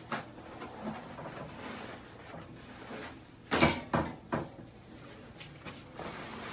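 Handling noises in a small room: a few sharp knocks and clatters, the loudest a cluster about three and a half to four and a half seconds in, with faint rustling between.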